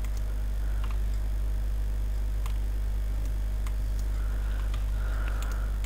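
Steady low electrical hum and hiss of a desktop microphone's background noise, with a few faint, scattered clicks.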